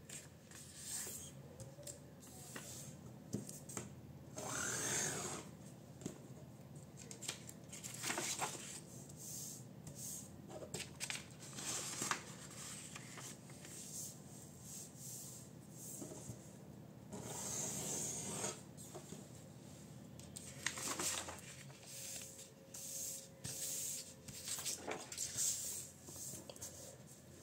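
A sheet of A4 printer paper being handled and folded on a tabletop: irregular rustles as it is moved and fingers rub along it to press the creases, with a few longer swishes among shorter scrapes.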